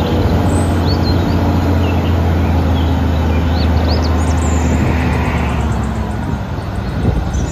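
Eight-wheel tipper truck's diesel engine running steadily as it raises its hydraulic tipper body, with birds chirping faintly above it.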